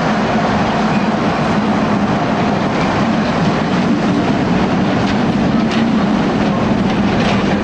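Covered wagons of a freight train rolling past, a steady rumble of wheels on rail, with a few sharp clicks of wheels over rail joints near the end as the last wagon goes by.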